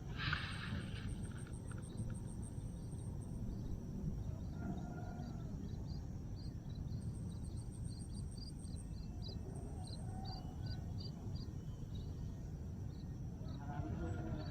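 Insects chirping over a steady low outdoor background rumble: a high, fast pulsing trill in two stretches and a run of short, evenly spaced chirps through the middle.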